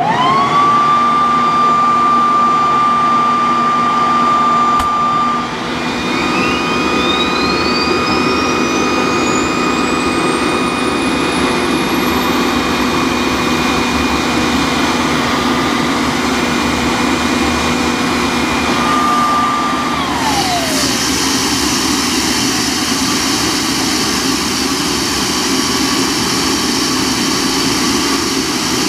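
An electric leaf blower starts with a high steady whine, blowing into the intake of a homemade propane-fed turbojet (Brayton-cycle gas turbine), and the turbine's own whine climbs steadily in pitch as it spools up. About 20 seconds in, the blower's whine winds down as it is switched off, and the engine carries on by itself with a steady rushing noise: it has started.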